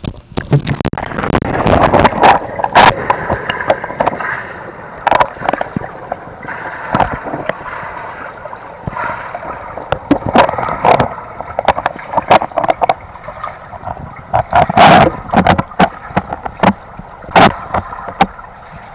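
Muffled churning and gurgling of swimming-pool water heard through a submerged camera as a swimmer strokes past. Many sharp clicks and knocks run through it, the loudest about three seconds in and again near the end.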